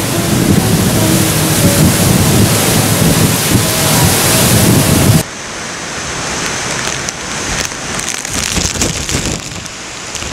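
Storm of strong wind and rain, a loud, dense rushing that cuts off suddenly about five seconds in to a quieter gusting storm with scattered clicks and knocks.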